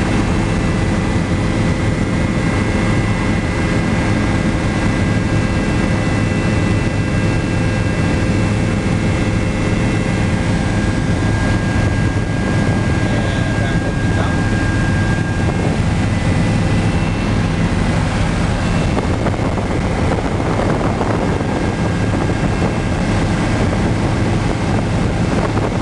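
Bell 206 JetRanger helicopter heard from inside the cabin: a steady, loud drone of rotor and turbine engine with several thin, steady high-pitched whines, some of which fade out about halfway through.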